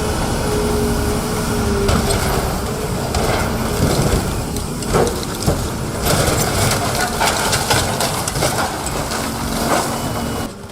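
Heavy machinery crushing material: a steady machine drone under continuous grinding and crunching, with sharp cracks and snaps about four to six seconds in.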